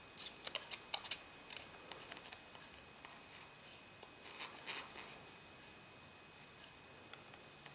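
Light, sharp clicks and ticks of small tools and parts on an iPhone 4 being put back together: a quick cluster of about a dozen clicks in the first second and a half, a faint scrape about four seconds in, then only the odd tick.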